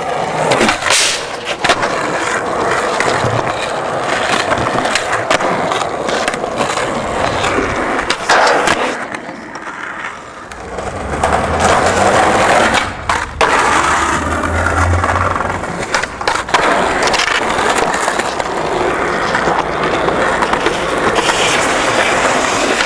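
Skateboard wheels rolling over concrete and paving in a steady rumble. The board clacks sharply several times.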